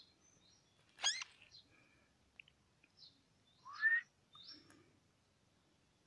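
Parakeet giving several short, separate calls, the loudest about a second in and just before four seconds in.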